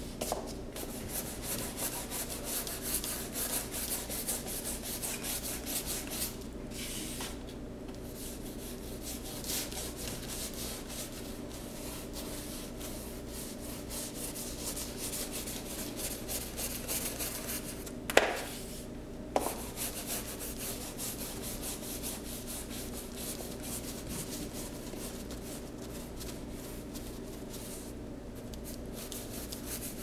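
A paintbrush stroking paint onto a large board: quick, repeated scratchy brush strokes with a couple of short pauses. Two sharp knocks a second apart about two-thirds through are the loudest sounds, over a steady low hum.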